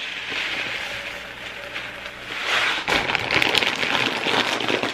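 Uncooked jasmine rice pouring from a plastic bag into a glass container: a steady patter of grains, getting louder about halfway through, with the plastic bag crinkling.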